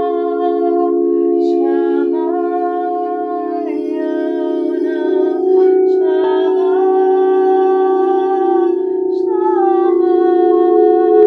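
A woman's wordless vocal toning, held notes that slide from one pitch to the next every second or two, over a steady drone of several sustained low tones from singing bowls, as sound-healing music.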